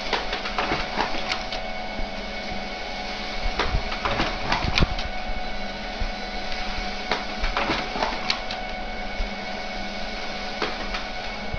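Printer running: a steady motor whine with irregular clicks and rattles.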